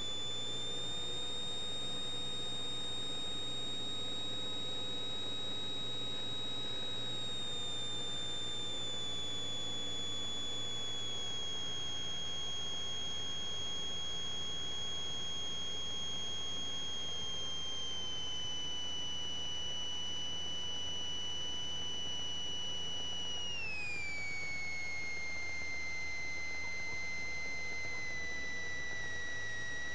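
High electrical whine from the Cessna 172's alternator, heard through the cockpit intercom audio. Its pitch follows engine speed, easing down in small steps as power is reduced on final approach. About 23 seconds in it falls sharply to roughly half its pitch as the throttle comes back to idle for the flare and touchdown.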